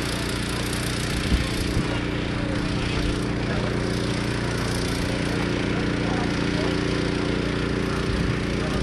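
A vehicle engine idling steadily, with two short knocks about a second and a half in.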